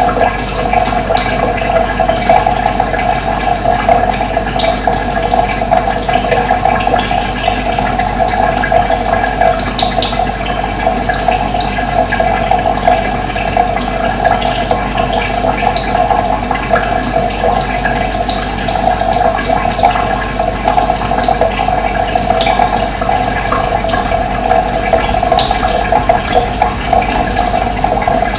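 Steady, loud rushing of running water, with short bird chirps scattered over it.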